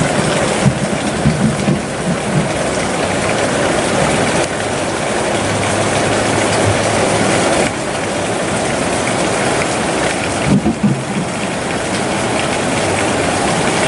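Steady rushing of river water flowing over rocks, with a few short low bumps near the start and about ten seconds in.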